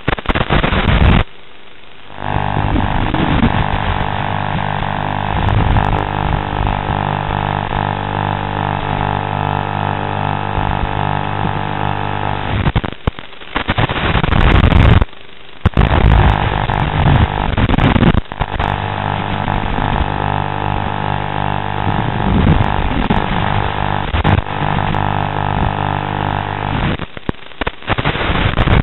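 Steady buzzing from an FPV tiny whoop quadcopter's flight recording, motor-like with several held tones. It cuts out briefly about a second in and again around the middle.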